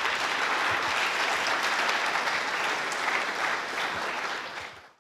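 Audience applauding: steady clapping that fades out near the end.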